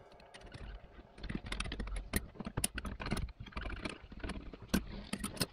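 Irregular metallic clicks and clacks from a 1978 Mustang II's hand parking brake lever being worked by hand on its homemade mounting bracket, the ratchet clicking as the lever moves.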